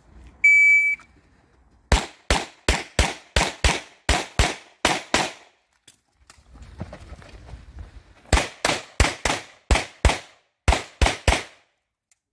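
Shot-timer start beep, then a rapid string of about eleven handgun shots. After a gap of about three seconds, about nine more shots follow.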